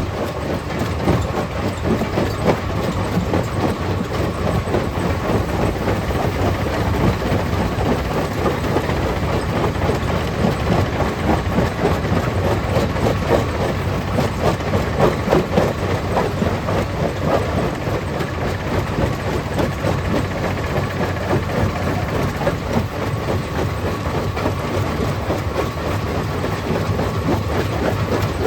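Stone crusher plant running: a steady machinery drone under a dense, unbroken clatter of rock being crushed and knocked about.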